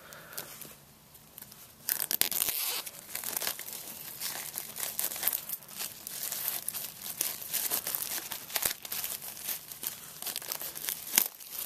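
Plastic shrink-wrap being torn and peeled off a Blu-ray box set, crinkling and crackling irregularly. It starts about two seconds in and stops shortly before the end.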